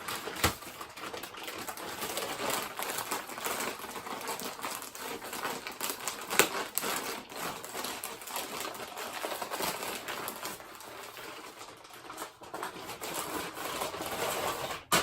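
A shipping package being opened and handled by hand: continuous crinkling and rustling of packaging with many small clicks and a few sharp snaps, stopping abruptly near the end.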